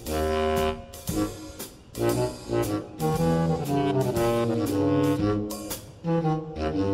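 Background music: a jazzy tune led by brass, with notes moving in steps over a steady beat.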